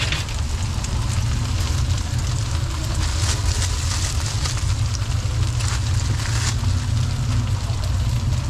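Steady low rumble of street traffic, with crinkling of a thin plastic bag as it is opened and pulled over a bowl, loudest a few seconds in.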